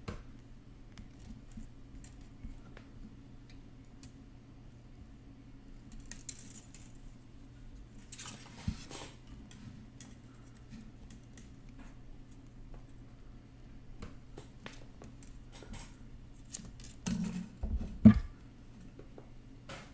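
Faint clicks and small scrapes of half-round jewellery wire being threaded through and pulled tight around a wire-wrapped ring by hand, over a steady low hum. A brief rustle comes about eight seconds in, and a louder knock near the end.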